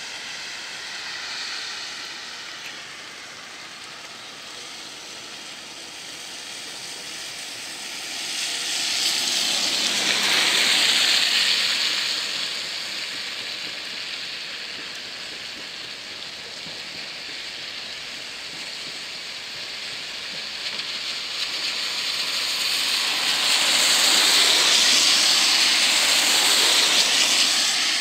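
Steady hiss of rain, with two road vehicles passing on the wet road; their tyre spray swells and fades about ten seconds in and again about twenty-five seconds in.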